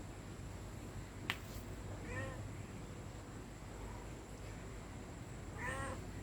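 A domestic cat meowing twice, short meows about two seconds in and near the end, the second one louder. A single sharp click comes a little over a second in.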